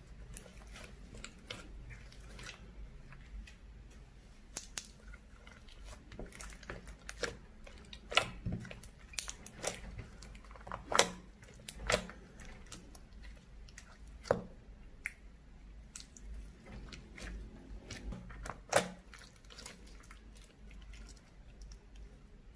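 Lipstick slime being squished and kneaded by hand, giving irregular sticky clicks and pops, a few of them louder.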